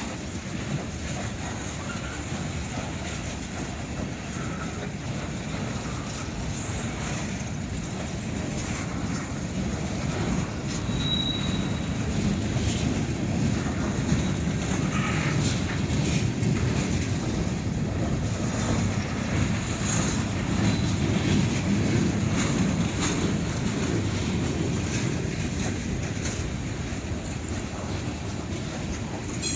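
Long Norfolk Southern freight train rolling past: a steady rumble of steel wheels on rail with scattered clicks from the rail joints, swelling toward the middle and easing near the end. A brief high wheel squeal about a third of the way through.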